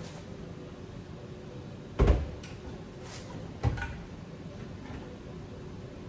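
Wooden kitchen cabinet doors knocking as they are handled: one solid knock about two seconds in and a lighter one about a second and a half later, over quiet room tone.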